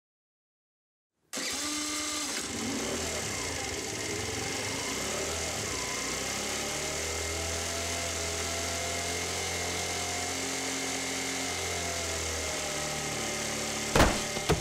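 Motorbike's small engine starting about a second in and running steadily as the throttle is worked, with a few sharp knocks near the end.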